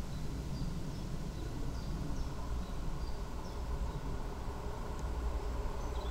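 Low, steady rumble of a distant electric high-speed train approaching on the line, growing slightly toward the end, with a few short, high bird chirps.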